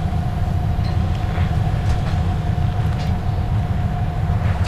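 Passenger train standing at a station platform: a steady low rumble with a constant hum-like tone through it and a few faint clicks.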